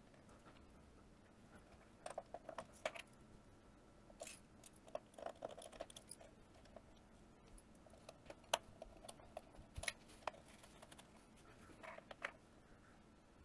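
Quiet, scattered clicks and taps of a small blue plastic hand-crank USB generator case being handled and closed up, some in quick little clusters.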